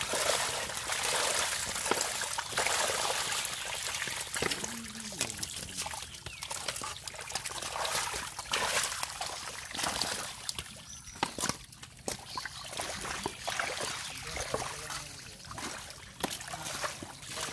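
Shallow muddy water splashing, sloshing and trickling as bowls and hands scoop through a dense mass of wriggling stinging catfish, with many small irregular wet splashes and water dribbling off the lifted bowls.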